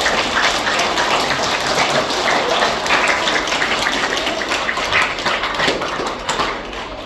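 Audience of schoolchildren clapping in a hall, dense and steady, fading a little near the end.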